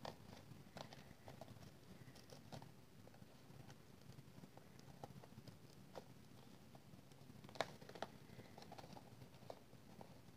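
Faint rustling and light taps of hands tying a sheer ribbon bow on a cardstock box, with one sharper tap a little past halfway.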